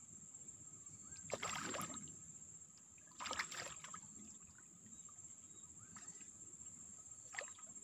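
Hooked snakehead thrashing at the water's surface on a fishing line: two splashes, about one and a half and three and a half seconds in, with smaller splashes later. A steady high insect drone runs behind them.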